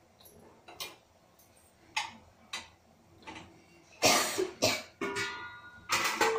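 Cookware being handled. A few faint knocks, then about four seconds in loud metal clanks followed by a ringing tone.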